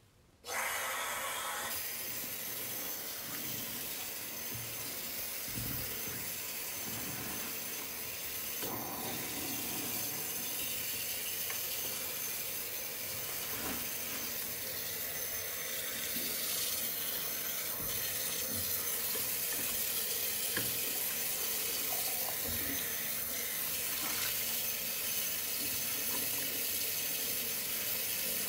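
Tap water running steadily into a sink, turned on suddenly about half a second in, with soft squelches of hands squeezing soaked, mushy soap under the stream.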